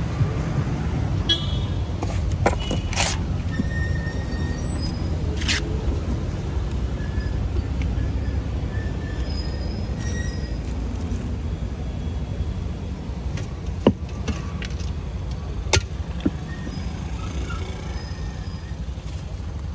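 Steady low rumble of roadside traffic, with a few sharp clicks and knocks from the food stall as the vendor works.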